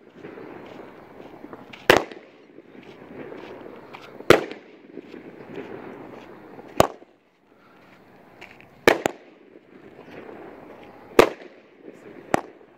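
Grand Patriot '4x4' consumer fireworks cake firing a shot about every two seconds, each a sharp bang, with a quieter rustle between the shots. Two bangs come close together about nine seconds in.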